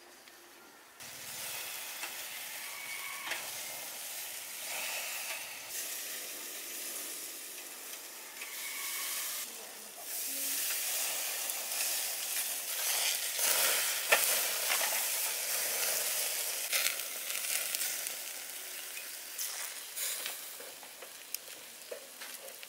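Marinated pork cutlets sizzling on a wire grill rack over a charcoal fire, with fat crackling and popping through the hiss. The sizzle starts about a second in and grows louder about halfway through.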